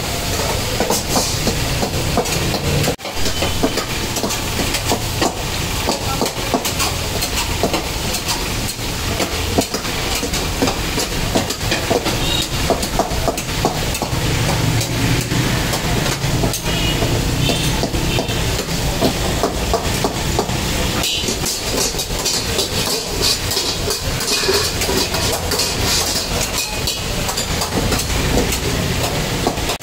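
Mutton karahi sizzling in a black iron wok over a gas burner, with a long steel ladle scraping and clattering against the wok as the meat is stirred. The burner's flame adds a steady low rumble.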